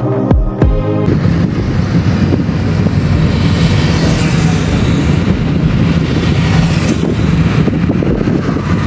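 Background music that stops about a second in, then a car running along the road as heard from inside it: steady engine hum and road noise.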